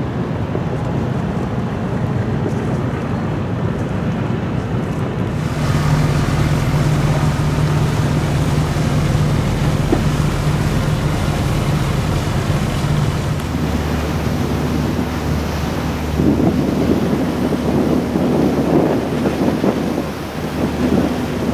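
Steady low drone of a ship's engine under wind buffeting the microphone and water rushing past the hull. The noise changes abruptly about six seconds in and again about halfway through.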